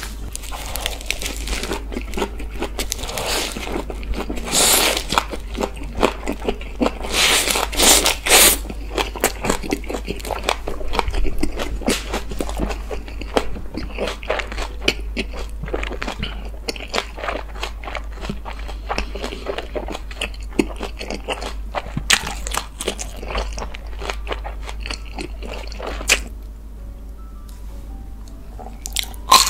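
Close-miked chewing of a lettuce wrap filled with smoked pork belly: crisp crunching of the lettuce and wet, clicky chewing, loudest a few seconds in and again around eight seconds, quieter near the end.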